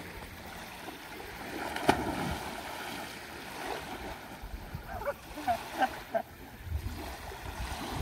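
Small lake waves lapping on a pebble beach, a steady wash. There is a sharp click about two seconds in, and a few short high chirps around five to six seconds in.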